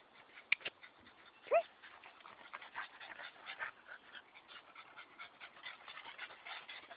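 Pet dog giving one short whine about a second and a half in, then panting quickly; a sharp click comes just before the whine.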